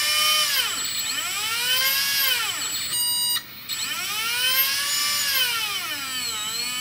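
Turnigy P2627L 4200 kV brushless motor, used as a small CNC spindle, whining as a hand grips it and lets go about three times: the pitch sinks as the hand brakes it and climbs again when released. The old 25 A Turnigy speed controller does not hold the speed, so the motor slows way down under load.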